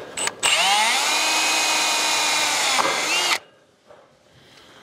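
Cordless drill giving a short blip, then spinning up and running steadily for about three seconds while driving a screw into steel sheet cladding, before winding down and stopping.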